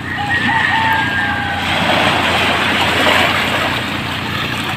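Waves washing over a pebble shore, a steady rush that swells about two seconds in, over a low hum. A rooster crows in the first second and a half.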